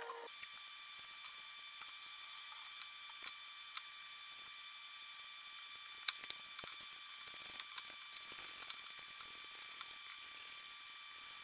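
Faint, irregular clicks and light metal taps of a wrench working the motor-mount bolts of a chicken plucker. They are scattered through the second half, over a steady faint high-pitched whine.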